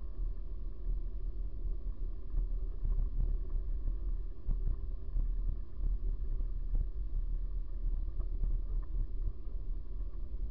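Bicycle riding along a rough asphalt street: a steady low rumble from the ride, with frequent small rattles and knocks as the bike goes over bumps, picked up by a camera carried on the bike.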